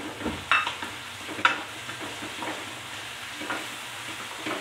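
Garlic, onion and shrimp paste sautéing in oil in an aluminium pot, sizzling steadily while a wooden spatula stirs. The spatula scrapes and knocks against the pan a few times, the sharpest knock about a second and a half in.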